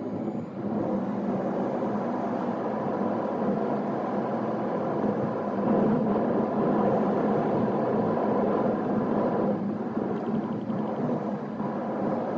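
Steady road and engine noise of a car on the move, swelling up in the first second and then holding.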